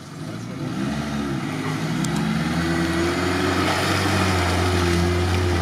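Small off-road 4x4's engine revving hard under load as it pushes through deep mud, getting louder as it approaches and then holding at high revs, with the tyres churning mud.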